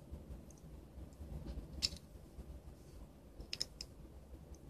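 Snap-fit plastic case of a small USB card reader being pried apart with a plastic pry tool: a few sharp plastic clicks and snaps, one about two seconds in and a quick pair near the end, over faint handling.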